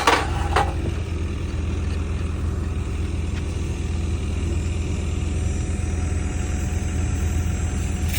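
An engine idling steadily throughout, with a few sharp knocks in the first second.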